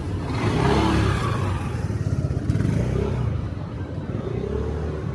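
A motor vehicle passing close by on a city street, its engine accelerating. It is loudest about a second in and eases off after about three seconds.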